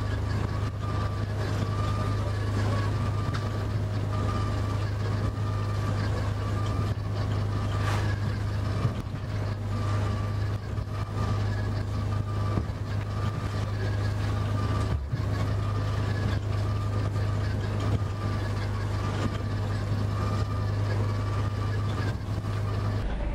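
Fishing boat's inboard engine running steadily under way, heard from inside the wheelhouse as a constant low drone with a faint steady whine above it, over the hiss of wash and spray as the boat pushes through choppy sea.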